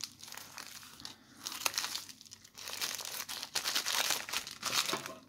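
Plastic postal mailer bag crinkling and rustling as it is cut with scissors and pulled open by hand, with irregular sharp crackles.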